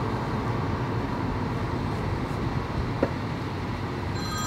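Steady road and tyre noise inside the cabin of a moving Tesla Model 3 electric car, with no engine sound, and a single click about three seconds in. A phone ringtone starts just before the end.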